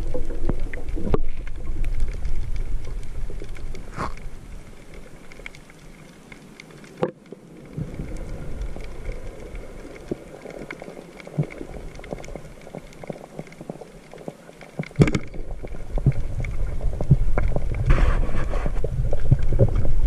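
Muffled underwater water noise: a low rumble that fades for several seconds in the middle and returns, with a few sharp clicks or taps scattered through it.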